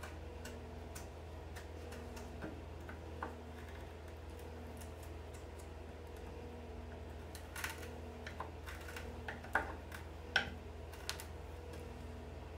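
Thin steel pick scraping and ticking against a nail buried in an oak chair post as it is dug out of the wood: scattered light clicks, with a few sharper ones in the last few seconds, over a steady low hum.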